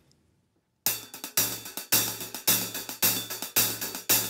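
Hi-hat struck with drumsticks in the 'railroad beat', a driving pattern nicknamed by 1970s drummers, starting about a second in. Longer cymbal washes come about twice a second with short ticks between them in a steady rhythm.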